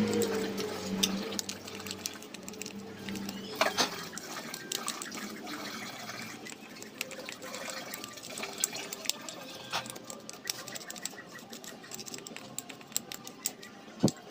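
Toothbrush bristles scrubbing an aluminium CVT drive pulley face from a Yamaha Mio scooter: rapid scratchy brushing with many small clicks and taps. A low hum fades out in the first couple of seconds, and a sharp click comes just before the end.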